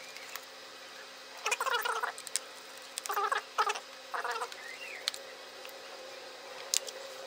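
Four short bursts of scratchy creaking and a few sharp clicks: a small screwdriver and hands working screws and plastic parts of a Lenovo ThinkPad Edge E530 laptop during disassembly.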